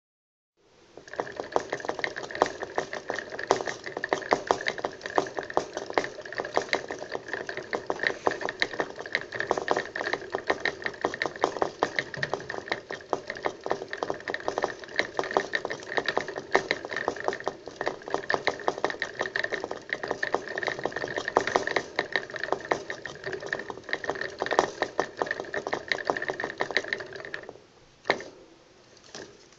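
Plastic hamster wheel spinning with a steady whir and dense rapid clicking as a hamster works it from its rim, stopping near the end.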